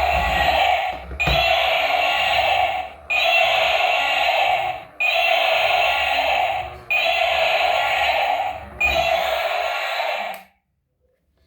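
A toy vehicle's electronic sound chip playing the same short sound effect over and over, through a small tinny speaker. It repeats about every two seconds and stops suddenly near the end.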